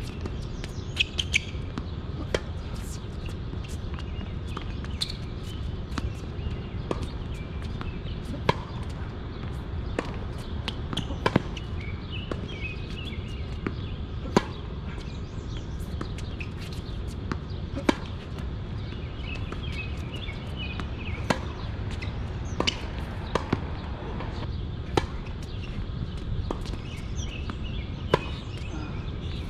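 Tennis ball being struck by rackets and bouncing on the court during a rally: a sharp pock every second or two, over a steady low rumble.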